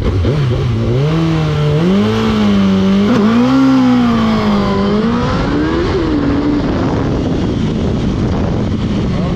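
Suzuki GSX-R1000 inline-four engine launching and accelerating hard, its pitch climbing and dipping several times over the first six seconds. It then settles into a steady rumble on the road. This is a test launch of the bike's freshly installed clutch plates and stiffer springs.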